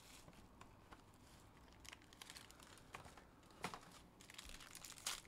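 Faint crinkling of a trading-card pack's plastic wrapper being handled and opened, with a couple of louder rustles in the second half.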